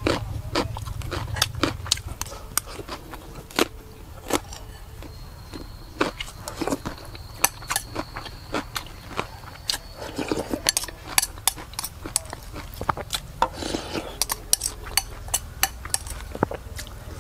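Metal spoon scraping and clinking against a ceramic bowl as the last of the fish-paste dip is scraped out, many short taps and clicks, mixed with close-up chewing and mouth sounds.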